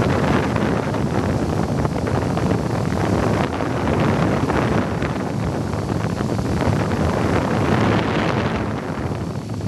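Wind rushing over the microphone of a camera carried on an RC airplane in flight, with the plane's motor running underneath as a steady noise.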